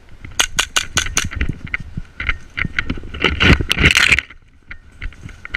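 Footsteps of a person running hard over dry scrub: a quick run of sharp clicks, then crunching and rustling through brush with gear rattling, loudest just before it stops a little past four seconds.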